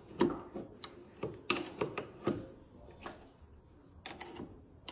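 Irregular sharp metallic clicks and taps from a hex key and hand tools working on a steel security door's hinge bolts, several in quick succession about a second in and a couple more near the end.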